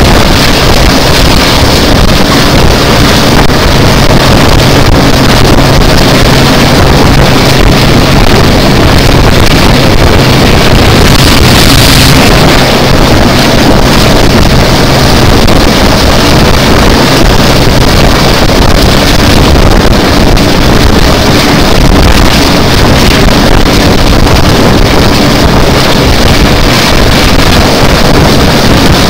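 Wind buffeting the microphone out of the window of a moving train, over the steady diesel drone of Class 42 'Warship' diesel-hydraulic locomotive D832 'Onslaught' hauling it. The engine note grows fainter a little past halfway.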